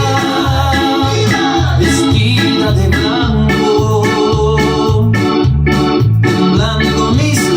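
Electronic keyboard with an organ sound playing a tune over a steady, repeating bass line, about two bass notes a second.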